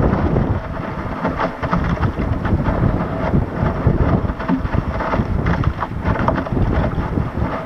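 Wind buffeting the action camera's microphone, over water rushing and slapping against the bow of an RS Aero dinghy under sail. A steady, loud roar broken by frequent irregular slaps.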